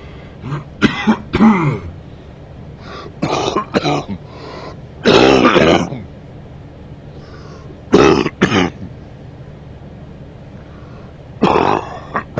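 A man coughing and clearing his throat in repeated bouts, the longest and loudest about five seconds in. A faint steady low hum runs underneath.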